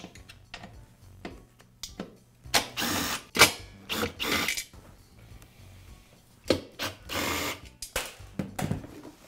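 Cordless driver running in three short spurts of about half a second each with a rattling, ratchet-like sound, backing out the screws that hold the air compressor's motor and pump assembly to the tank. Small clicks and knocks of handling come between the spurts.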